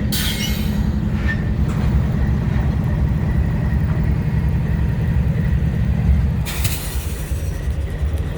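CSX freight train's diesel locomotive rumbling steadily as the grain train moves slowly through the siding switches. A hiss rises about six and a half seconds in and fades near the end.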